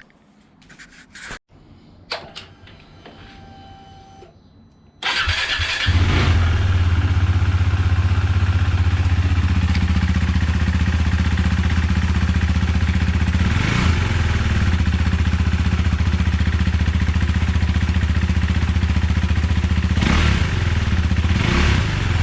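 KTM Duke 390's single-cylinder engine through its stock exhaust. After a few quiet clicks it starts about five seconds in and idles steadily, with a brief rev about halfway through and two more near the end.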